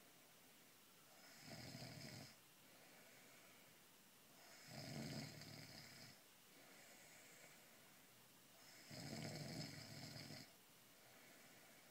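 A pregnant woman snoring in her sleep: three snores about four seconds apart, with quieter breaths between them.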